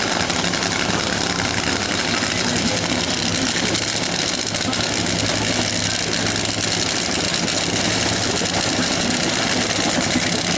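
A drag racing car's engine idling steadily, with no revving.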